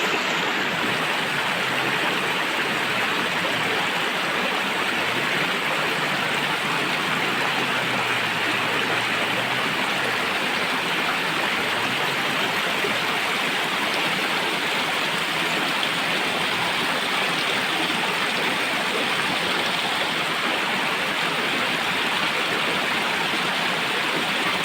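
Stream water rushing and splashing steadily over rocks, an even hiss without a break.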